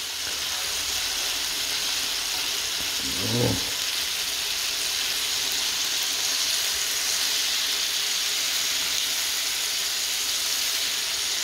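Chicken wings sizzling in a frying pan, a steady hiss.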